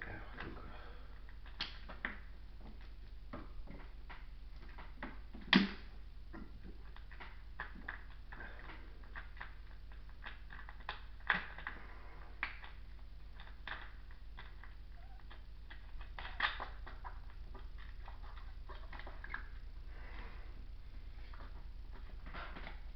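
Handling noise from a handheld camera: scattered faint clicks, taps and small knocks, a few louder ones about five, eleven and sixteen seconds in, over a steady low hum.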